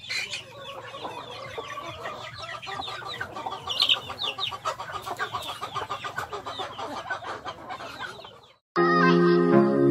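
A flock of chickens and ducks clucking and calling, a dense run of short overlapping calls. It cuts off about eight and a half seconds in, and background music starts right after.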